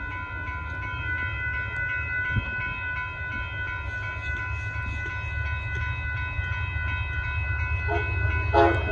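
Amtrak Texas Eagle passenger train approaching, a low rumble that grows slowly louder, with steady high ringing tones over it throughout. The train horn sounds near the end.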